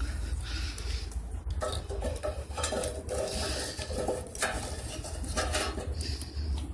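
Wooden sticks knocking and scraping against the steel fuel feed of a rocket stove as they are pushed in and arranged, an irregular clatter of clanks. A steady low rumble runs underneath.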